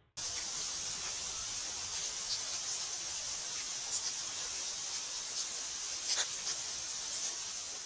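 Steady high-pitched hiss of a trail camera's unattended outdoor recording, with a few faint ticks scattered through it.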